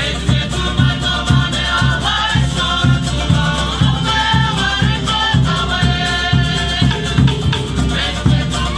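Live Cook Islands string-band music: ukulele and acoustic guitar strummed over a steady drum beat of about two strokes a second, with voices singing.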